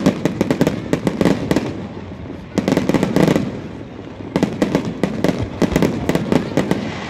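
Aerial fireworks display: volleys of rapid, sharp bangs and crackles from shells bursting overhead, in three salvos with short lulls between them.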